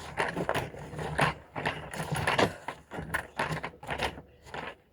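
Home-made bucket-and-plunger washer being worked by hand through laundry in water, with a run of short, irregular strokes about two or three a second.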